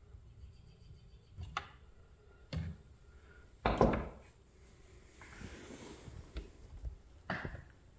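Hand-tool handling noises while working on a model crane with pliers: a few small clicks and knocks, the loudest a little under four seconds in, then about a second of rubbing and another knock near the end.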